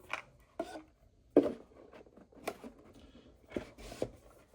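Hands handling a Square-1 puzzle and its packaging: a few scattered clicks and light knocks with soft rustling, the sharpest about a second and a half in.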